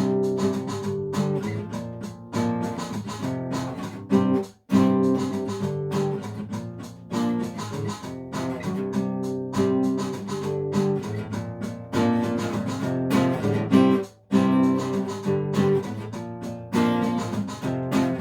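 Acoustic guitar music, chords strummed and plucked in a steady rhythm, breaking off briefly twice, about a quarter of the way in and again about three-quarters through.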